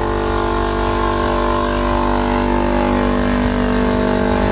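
A 20-gallon Campbell Hausfeld electric air compressor running steadily, pumping compressed air into its tank.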